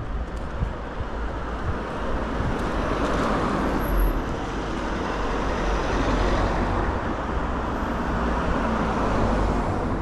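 City road traffic: cars passing close by, with tyre and engine noise that swells around four seconds in and again in the second half.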